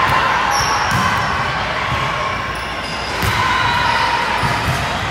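Reverberant din of a busy multi-court indoor volleyball hall. Balls bounce and are hit, with a few short high squeaks, over a steady background of voices.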